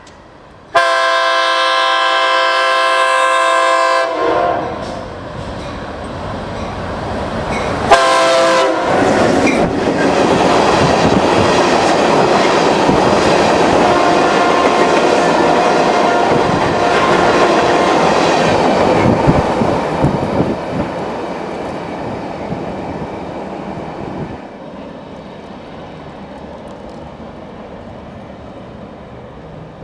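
Freight train led by a GP38-2 diesel locomotive: its multi-note air horn sounds one long blast of about three seconds, then a short blast about eight seconds in. Then covered hopper cars roll past with a steady rumble of wheels on rail, which falls away about 24 seconds in as the train moves off.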